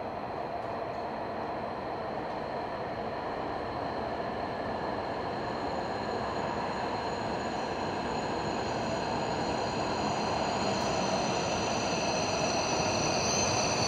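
E7/W7-series Shinkansen train pulling slowly into the station and braking. Its running noise grows steadily louder, with a steady high whine, and higher whines strengthen in the last few seconds as it slows toward a stop.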